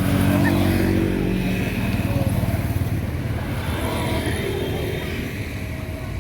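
A motor vehicle's engine running close by, loudest in the first few seconds and then slowly fading as it moves away.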